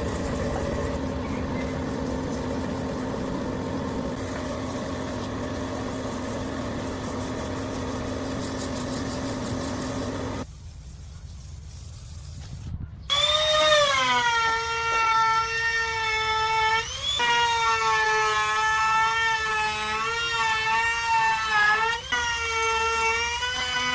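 Woodworking power tools running. First a steady machine noise with a low hum, which drops away about ten seconds in. A couple of seconds later comes a loud whine that dips and wavers in pitch as the tool is loaded.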